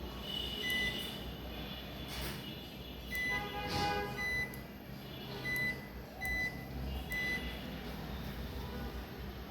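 Hisense front-load washing machine's control panel beeping as its buttons are pressed: about six short, high beeps a second or so apart, with a brief multi-note chime near the middle of the run, over a low steady hum.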